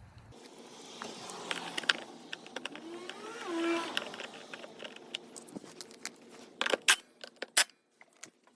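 Plastic body panels being handled and fitted onto a dirt bike: rustling and scattered clicks, a short rising squeak of plastic rubbing about three and a half seconds in, and a few sharp clicks near the end.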